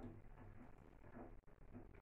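Near silence: faint room tone in a small room.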